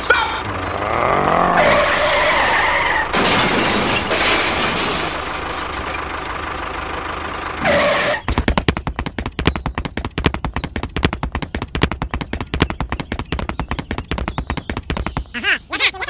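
A fast, uneven rattle of knocks, like a tractor engine chugging, running from about halfway through until near the end. Before it come sliding whistle-like tones and a hiss.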